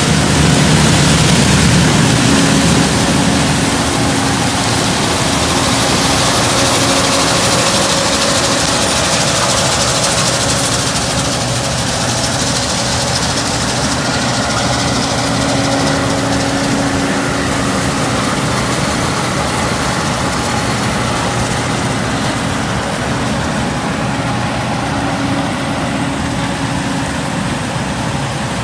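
Case IH 2388 combine's diesel engine and threshing machinery running steadily while it harvests corn with an 8-row corn head, a loud, even drone with a slight easing in level after the first few seconds.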